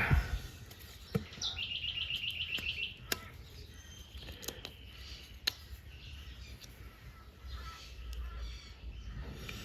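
A bird's quick trill of about a dozen rapid, even, high chirps lasting around a second and a half, starting about a second and a half in. Several sharp, separate clicks of a metal tool being handled come before and after it.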